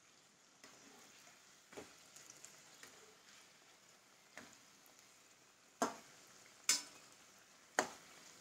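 Onion kachoris deep-frying in hot oil in a wok, a faint steady sizzle, while a steel ladle turns them and knocks sharply against the pan five times, the three loudest knocks in the second half.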